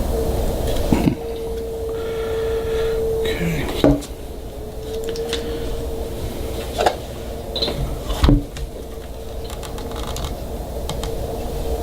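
Small plastic parts of a car's heater and AC control unit being handled and fitted, giving a few sharp clicks and taps and a brief squeak, over a steady background hum.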